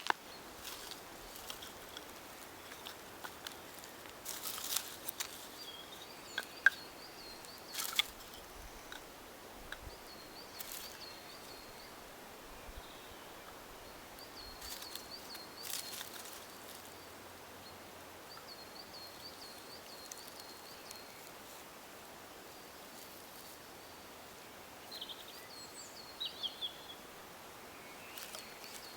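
Outdoor ambience with scattered sharp snaps and crunches, mostly in the first half, and a small bird repeating a short high trill every few seconds, with a brief chirpy call near the end.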